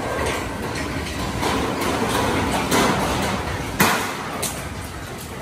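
Construction site noise: a steady hiss-like background broken by several sharp knocks, like hammer blows or metal being struck, the loudest about four seconds in.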